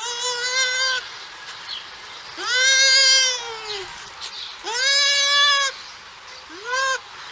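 Bush dog giving a series of calls: four drawn-out, pitched calls, each swooping up at its start and dropping off at its end, the last one short.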